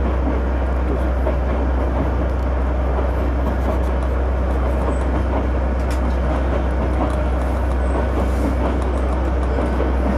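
Oigawa Railway Ikawa Line passenger train running along the track, heard from the front of the train: a steady rumble with a constant low hum and a few faint clicks.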